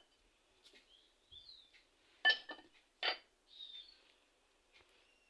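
Two light knocks of a spoon against a saucepan, about a second apart, as dried thyme is added to sliced onion, with faint bird chirps between them.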